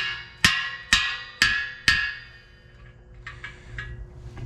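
Five sharp, ringing strikes, evenly spaced about two a second, each dying away over the next half second, followed by quiet.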